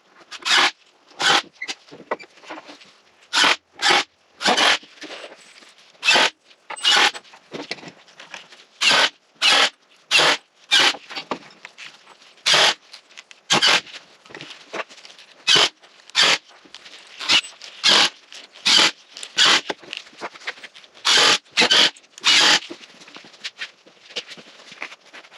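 A handsaw cutting an angle on a 2x lumber collar tie, in short rasping strokes that come in uneven runs with brief pauses.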